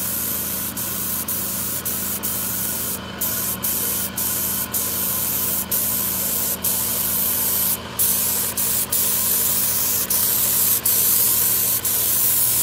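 Compressed-air paint spray gun hissing as it sprays, with brief breaks every half second to a second where the trigger is let off, and slightly longer pauses about three and eight seconds in. A steady low hum runs underneath.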